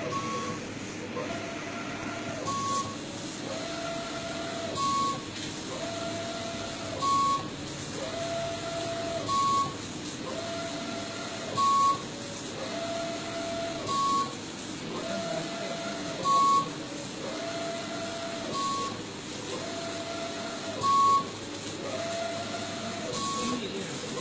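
Wide-format inkjet printer at work, its print-head carriage shuttling back and forth: a whine on each pass, repeating about every two seconds, each ending in a short higher tone and a louder knock as the carriage turns and the media advances.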